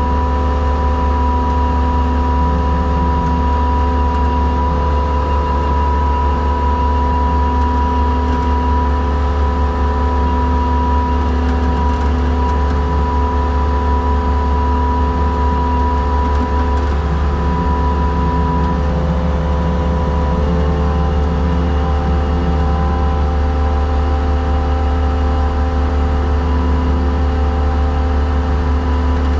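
Skid steer's diesel engine running steadily under load with a steady hydraulic whine, as the winch box's spool rewinds; the whine shifts in pitch about twenty seconds in.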